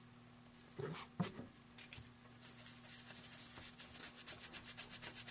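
Small ink sponge dabbing ink onto the edges of a die-cut paper-vellum butterfly: a fast, even run of soft pats, about five a second, beginning about two and a half seconds in, after a couple of soft paper-handling sounds. A faint steady hum lies underneath.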